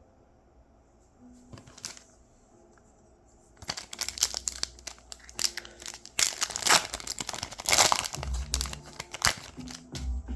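Foil wrapper of a collectible card pack being crinkled and torn open by hand: a dense run of irregular crackles that starts about three and a half seconds in and goes on for several seconds.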